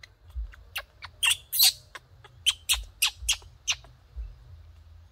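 Baby macaque giving a rapid series of short, shrill squeaks, about a dozen in under four seconds, the loudest about a second and a half in.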